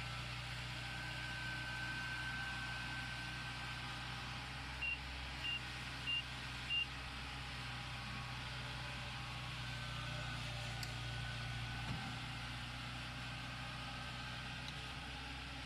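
Tracked Kubota rice combine harvester's diesel engine running steadily as the machine crawls through mud. About five seconds in, four short high-pitched beeps sound in quick succession.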